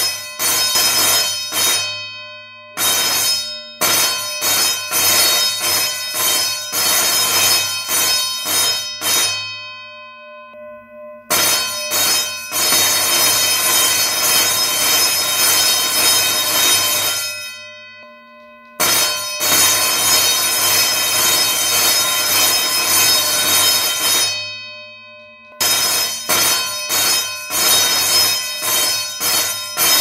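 Electric school bell, its clapper hammering rapidly on a metal gong, ringing in bursts of about six seconds. Each burst stops and fades away before the next begins, about four times.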